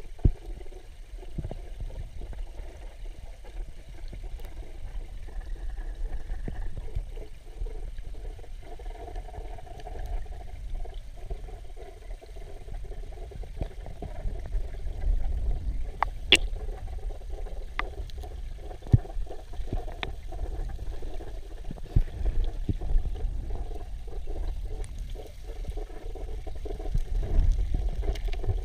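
Underwater sound of a river with a fast current: a steady low rumble and hiss of moving water, broken by a handful of sharp clicks, the loudest about sixteen seconds in.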